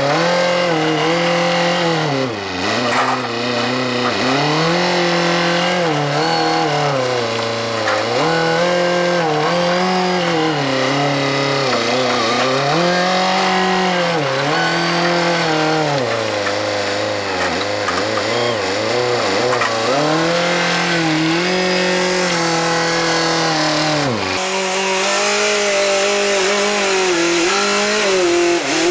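Telehandler's diesel engine running, its pitch rising and falling again and again as the hay grapple and boom are worked. About four seconds before the end it settles to a steadier, higher note.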